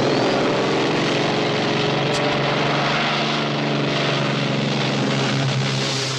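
Light propeller airplane's piston engine running at full power on takeoff, a loud steady drone with propeller noise.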